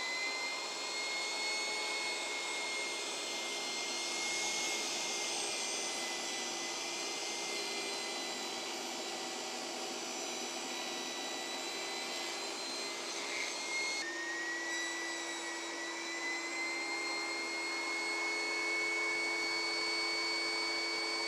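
Portable table saw running with a steady high motor whine while it cuts bridle-joint slots in alder stock fed upright on a fence-riding jig. The whine's pitch drops abruptly about two-thirds of the way through, then climbs slowly back.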